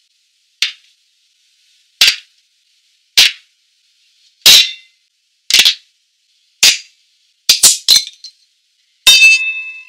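Sharp metallic clacks, about one a second, from a hatchet blade striking and prying at the cap of a glass beer bottle, with a quick run of three near the end. Just before the end a glass clinks and rings briefly.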